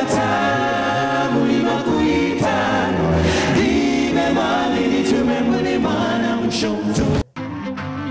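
A choir singing, several voices together in harmony. It cuts off abruptly about seven seconds in, and quieter music follows.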